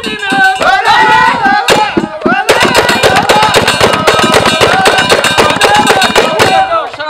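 A male folk troupe singing together; about two and a half seconds in, the group breaks into fast, loud rhythmic hand clapping that runs under the voices.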